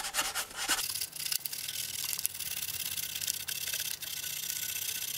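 A sheet of paper rubbed back and forth between the blackened contacts of a food dehydrator's thermostat to clean them: a scratchy hiss, made of short strokes at first and then more even.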